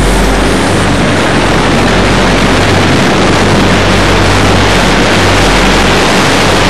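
Race car travelling at speed, heard from a camera mounted on its outside: a loud, steady rush of wind over the microphone with a low engine drone underneath.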